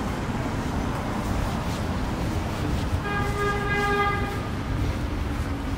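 Steady city street traffic rumble. About three seconds in, a vehicle horn sounds once, held as one steady tone for about a second and a half.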